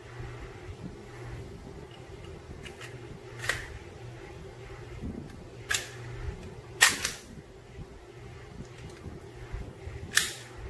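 Sharp metallic clacks of a Sig Sauer P320 pistol's slide being worked by hand on its new X-series grip module, about four of them a few seconds apart, the loudest about seven seconds in.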